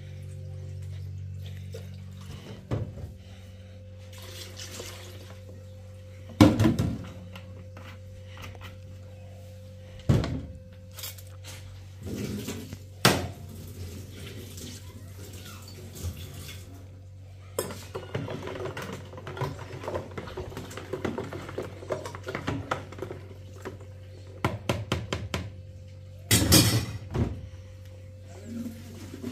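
Pots and dishes clattering, with several loud knocks and some running water, over steady background music.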